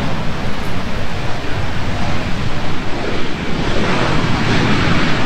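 Wind buffeting the microphone: a loud, continuous rushing noise that swells and hisses more about four seconds in.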